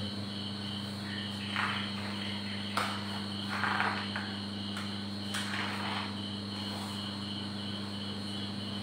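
Crickets chirping steadily over a low steady hum, with a few short swishes of a whiteboard eraser wiping the board between about 1.5 and 6 seconds in, and one sharp click near the middle.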